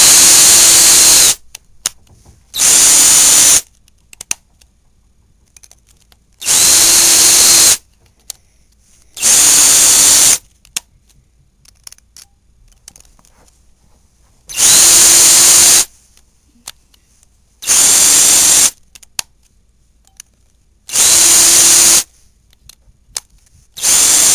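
Power drill with a 1/16-inch bit drilling small holes through a thin wooden fingerboard deck. The drill runs in eight short spurts of about a second each, with quiet pauses between them.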